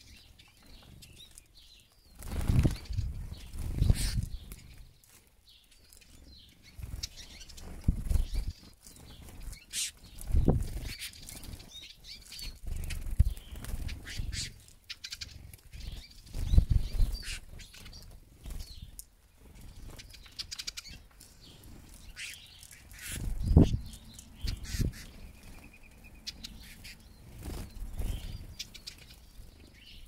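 Eurasian siskins fluttering their wings close by as they land on and take off from seed feeders: soft whooshing wingbeats come again and again every few seconds.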